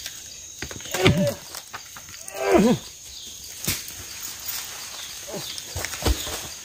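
Two short, strained groans of effort that fall in pitch, about one and two and a half seconds in, from men prying at and shoving a rotten tree stump with a wooden pole. Scattered knocks from the work, with a heavier thud near the end.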